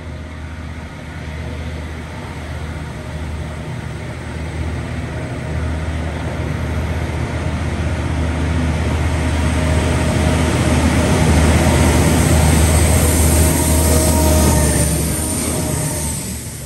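Diesel freight locomotive approaching and passing close by. Its engine drone grows steadily louder and is loudest from about eleven to fifteen seconds in. Then the level drops as the locomotive goes by and the container wagons roll past with wheel noise on the rails.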